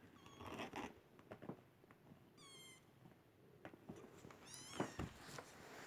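Kittens mewing faintly: two short high-pitched meows, about two and a half and four and a half seconds in, the second rising and then falling, with a few soft knocks between.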